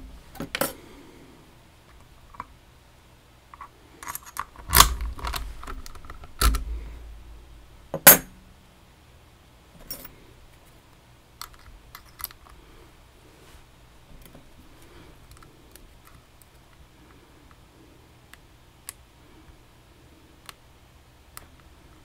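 Metal lock picks and a Vachette VIP lock being handled: a handful of loud metallic clinks and clatters in the first eight seconds, then sparse light clicks and ticks.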